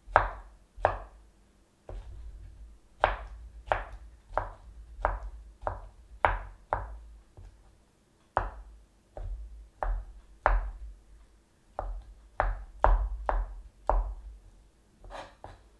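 Kitchen knife dicing mango on a wooden cutting board: the blade knocks on the board about two dozen times, irregularly, one to two a second, with a couple of short pauses.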